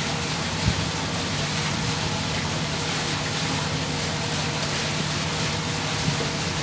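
Steady low hum of a moored ship's machinery, running under a constant wash of noise, with one faint knock about a second in.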